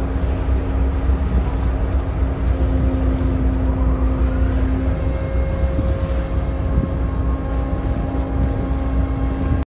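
A ferry's engine running, heard from the deck as a steady low drone with a constant hum over it.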